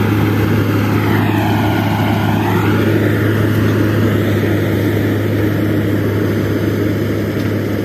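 John Deere 5310 GearPro tractor's diesel engine running under load and driving a straw reaper, a loud steady drone.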